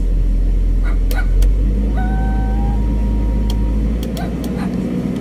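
Diesel engine of an XCMG XE135B hydraulic excavator, heard from inside the cab, running at raised speed after the throttle dial is turned up. It is a steady, loud low rumble that eases off slightly about four seconds in.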